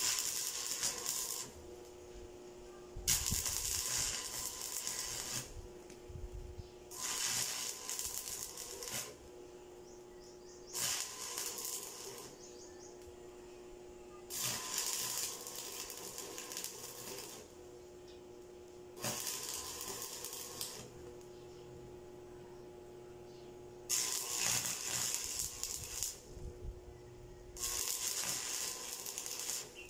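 Electric arc welding on a 2.5-inch steel pipe: the arc crackles in short runs of about two seconds, eight in all, with pauses of a second or two between them. A steady hum continues in the gaps. The welds close the cut where the bent pipe was straightened, run all around the pipe.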